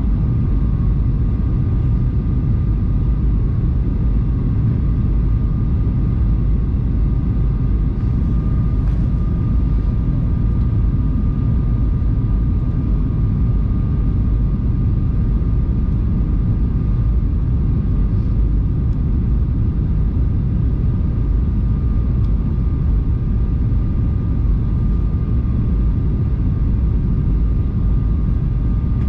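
Jet airliner cabin noise heard from a window seat by the wing on descent: a steady low rumble of engines and airflow, with a faint steady whine of the engines over it.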